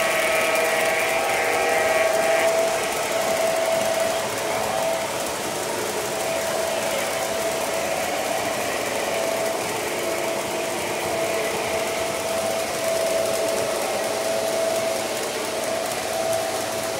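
O gauge model trains running at track speed: a steady whir of the locomotives' motors and wheels on the rails. A locomotive horn from a sound-equipped diesel trails off about two seconds in.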